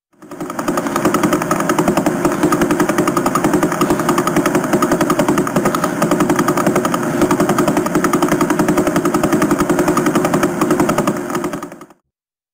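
A pulsar's radio signal converted into sound: a rapid, even train of pulses, many a second, each pulse one turn of the spinning neutron star. It cuts off abruptly near the end.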